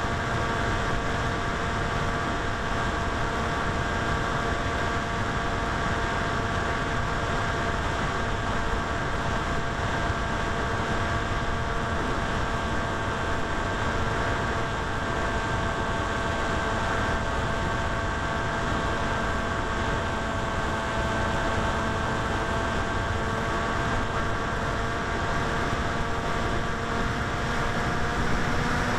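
Electric motor and propeller of a small RC flying wing heard from its onboard camera, a steady whine under rushing wind, rising slightly in pitch near the end as the throttle goes up.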